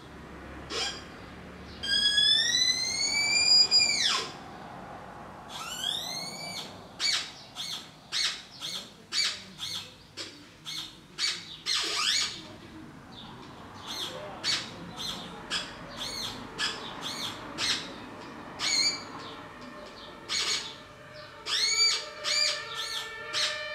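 Bird-like chirps and whistling pitch glides from paper-cone sound hats. About two seconds in come long sweeps with overtones that rise and then fall, followed by a run of short chirps at a few per second. Near the end, held steady tones sound under the chirps.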